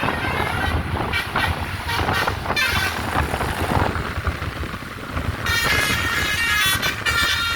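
Bus telolet horn, a multi-tone musical air horn, playing a short tune of high notes that step in pitch over a little more than a second, starting about five and a half seconds in, over the low rumble of the bus.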